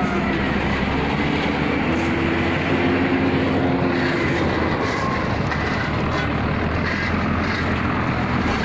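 Steady rumble of diesel truck engines running close by, with a constant low hum and a few faint held tones rising over it now and then.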